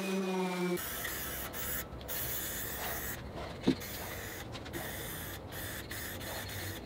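A handheld power sander hums for under a second and cuts off, then an aerosol spray can hisses in a series of bursts about a second long, with brief gaps between them. A single knock sounds about a third of the way through.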